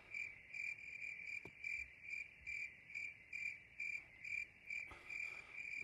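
Crickets chirping in a steady, even rhythm of about two and a half chirps a second.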